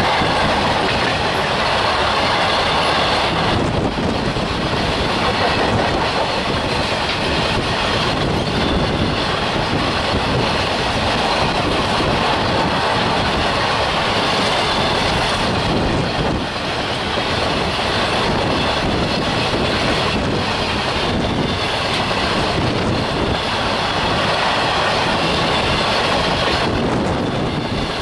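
Long coal-loaded freight train of open steel wagons rolling past close by at speed: a steady rumble and clatter of steel wheels on the rails, with a rhythmic clickety-clack as the wheels cross the rail joints.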